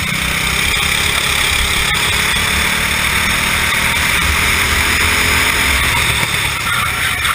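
Racing kart engine heard from the onboard camera, pulling hard out of a hairpin and along the straight, then easing off a little near the end as the kart nears the next bend.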